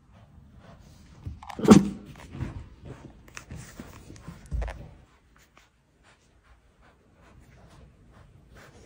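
Tiger cub giving a short call that falls in pitch, the loudest sound, a little under two seconds in. Scattered light taps and a dull thump about four and a half seconds in come from its movements.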